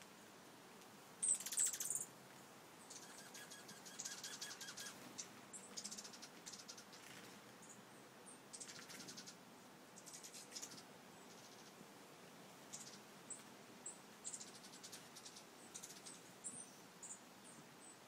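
Dark-eyed juncos giving short bursts of high, rapid twittering trills, over and over, the loudest about a second in.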